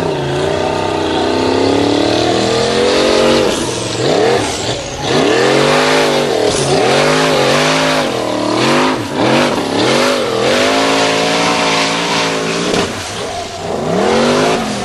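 Formula Offroad buggy engine at high revs under load, climbing a steep gravel slope with its wheels spinning. The revs climb over the first few seconds, then rise and fall over and over, dropping briefly about four, nine and thirteen seconds in.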